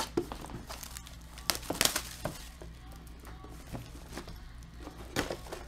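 Plastic shrink-wrap crinkling and tearing as a sealed box of trading cards is unwrapped by hand, with sharp crackles about one and a half to two seconds in and again near the end.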